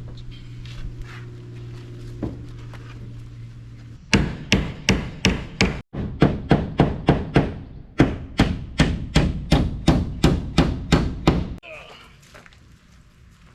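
Hammer driving nails into T1-11 plywood siding: a fast, even run of strikes, about three or four a second, starting about four seconds in and lasting several seconds before stopping abruptly.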